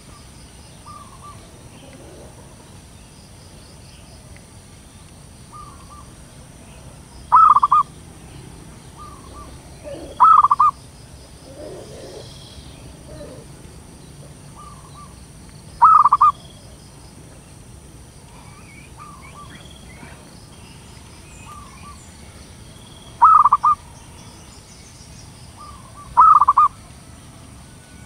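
Zebra dove (perkutut) calling: five loud short coos spread irregularly a few seconds apart, with fainter short calls from another dove in between.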